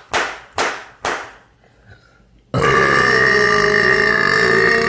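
A can of Copenhagen dip being packed: three sharp smacks about twice a second as the can is flicked against the fingers. Then, about two and a half seconds in, a man lets out a long, loud burp.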